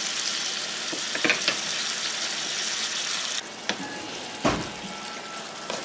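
Ground beef and garlic frying in oil in a hot pan, sizzling, with the clicks and knocks of a utensil stirring against the pan. The sizzle drops off suddenly about three and a half seconds in, and one heavier knock follows a second later.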